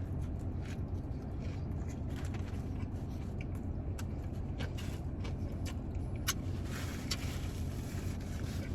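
Steady low hum of a car idling, heard from inside the cabin, with scattered small clicks and rustles of food and packaging being handled.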